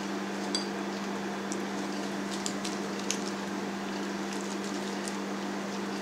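Steady low electrical hum, with a few faint light clicks of a metal spoon against a plastic bowl scattered through it.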